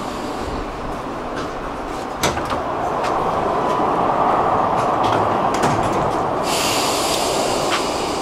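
Rotterdam metro train running inside the carriage. About two seconds in it gives way, after a sharp click, to the louder noise of a station ticket-barrier hall, with a steady hiss coming in near the end, typical of the barriers' sliding doors working.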